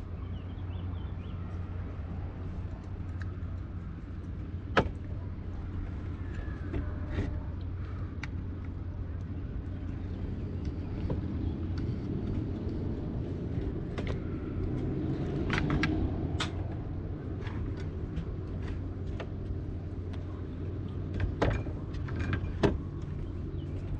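Steady low hum with scattered small clicks and knocks as the metal pin and plastic lever of a Spinlock rope clutch are handled and fitted: one sharp click about five seconds in, a cluster of clicks past the middle and a few more near the end.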